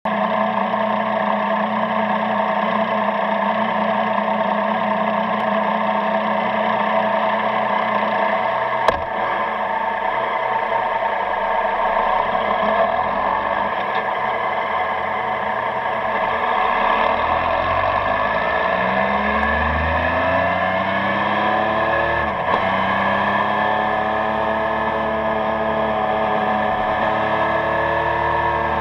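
Yamaha Tracer motorcycle engine through its stock exhaust, running steadily at first. From about two-thirds of the way in it pulls up with rising pitch, a gear change dropping it briefly before it rises again. A single sharp click comes about nine seconds in.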